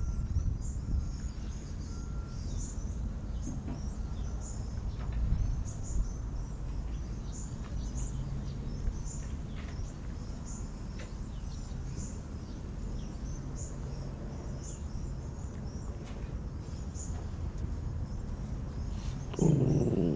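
Outdoor yard ambience: small birds chirping in short high calls about once a second over a steady low rumble. Near the end a louder, lower sound briefly rises above it.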